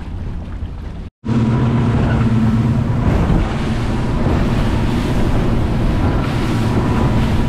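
Motorboat running fast on open water: a steady engine drone with a thin high whine, mixed with wind on the microphone and the rush of water and spray off the hull. About a second in the sound drops out for an instant and returns louder.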